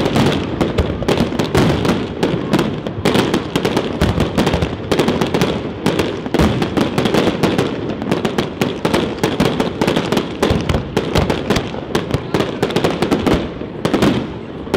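Fireworks display: a dense barrage of aerial shells bursting and crackling in quick succession, many reports a second, easing off a little near the end.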